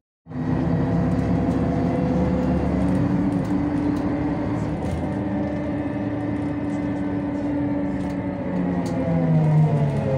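Ikarus 260 city bus's diesel engine heard from inside the passenger saloon, running under way with a steady drone that drops in pitch near the end as the engine slows.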